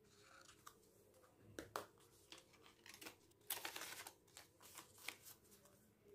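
Faint paper handling: a folded paper card rustling as it is turned over and pressed flat, with a few sharp taps. The rustling is loudest about three and a half seconds in.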